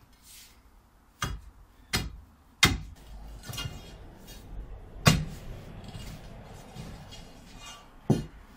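Steel digging bar driven down into the old gate post's concrete footing: five sharp metal-on-concrete strikes, the third and fourth ringing briefly, with scraping and crumbling in between as the concrete is broken out.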